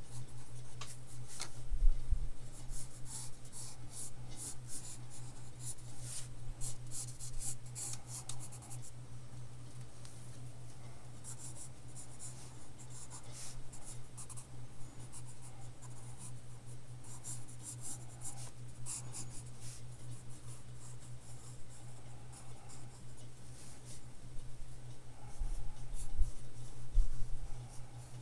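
Ebony graphite pencil scratching on sketchbook paper in runs of short strokes with brief pauses, over a steady low hum. A few soft thumps come about two seconds in and again near the end.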